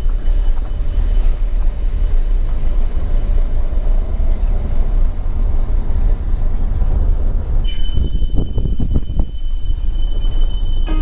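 Car driving along a road, a steady low rumble of tyre, engine and wind noise heard from inside the moving car. About two-thirds of the way through, a few thin steady high tones join in.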